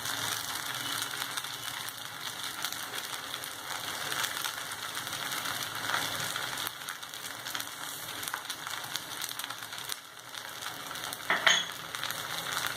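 Fried rice and vegetables sizzling steadily in a hot pan as they are stirred, with scattered scrapes and knocks of the spoon against the pan and a louder knock near the end.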